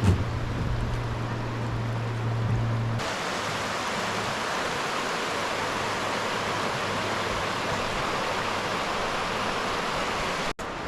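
Rushing stream water, a steady even rush that grows fuller and brighter after an abrupt change about three seconds in. A low steady hum sits under the first three seconds.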